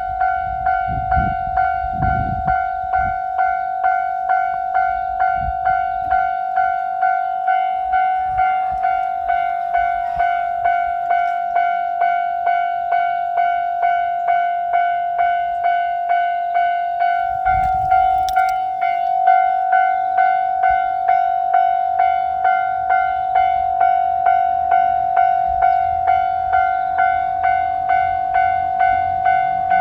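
Japanese railroad crossing alarm ringing its repeating electronic 'kan-kan' warning, an even run of strikes on one steady pitch, the signal that a train is approaching. Brief low rumbles sound near the start and again about two-thirds of the way through.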